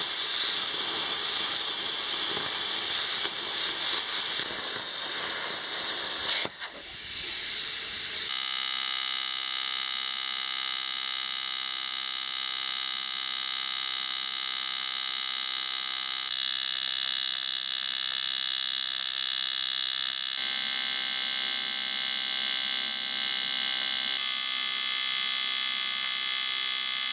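An angle grinder cutting an aluminium tread-plate sheet, a loud high hiss. From about eight seconds in, a TIG welding arc buzzes steadily as the seams of an aluminium fuel tank are welded, in a few takes that change tone slightly at each cut.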